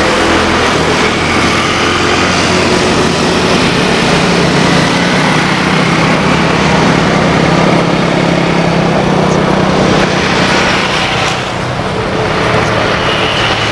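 Airbus A320-232 jet airliner with IAE V2500 turbofans, heard loud and steady as it touches down and rolls out along the runway, with a low hum running under the engine noise.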